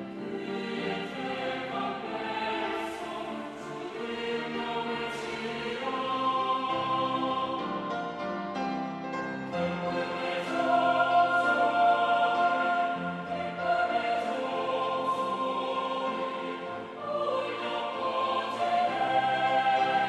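A mixed choir singing in Korean with instrumental accompaniment, swelling louder about ten seconds in to a forte.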